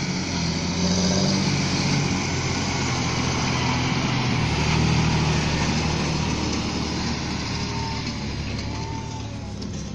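Large John Deere tractor's diesel engine running under load as it pulls a seed drill across a field, passing close by and growing fainter in the second half as it moves away.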